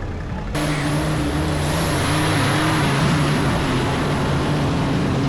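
Off-road competition vehicle's engine running under load, its pitch wavering up and down as the throttle changes, over heavy rushing noise. The sound changes abruptly at an edit cut about half a second in.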